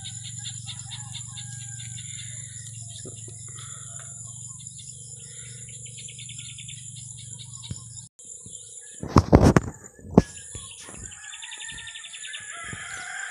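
Small birds chirping and insects trilling in rapid repeated trains over a steady high buzz. About nine seconds in comes a short burst of loud knocks, with one more a second later, from handling close to the microphone.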